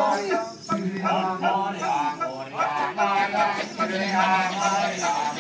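Kecak chorus: a group of men chanting, with a steady held low note under wavering sung phrases.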